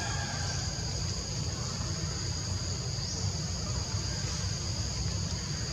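Insects droning steadily in a high-pitched, unbroken chorus, over a low steady rumble.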